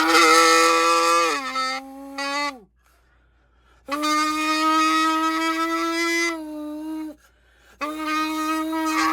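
Horn-like notes blown into an empty Pepsi can: three long, steady notes, each sagging in pitch as it ends. The first steps down in pitch partway through.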